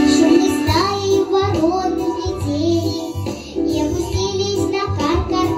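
A young girl singing a children's song into a microphone, her voice gliding between held notes over instrumental accompaniment with a steady, repeating bass.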